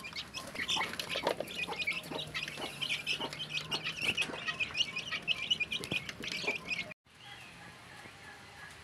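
A flock of young chickens peeping constantly in short high chirps, with scattered light clicks. The peeping cuts off abruptly about seven seconds in, leaving only a faint steady background.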